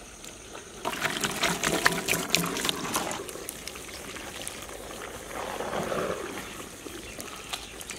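Butter-fried chicken pieces poured from a steel bowl into a large pot of mac and cheese, a clattering, pattering tumble about a second in that lasts about two seconds. A softer, wetter noise follows a few seconds later.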